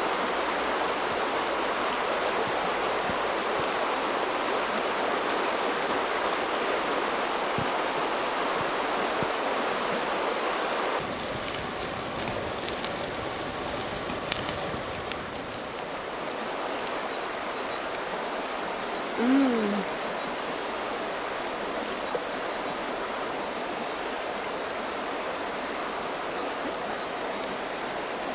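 River water flowing steadily. About eleven seconds in, the rush changes abruptly to a quieter, thinner wash with scattered faint ticks. Later a single short call falls in pitch.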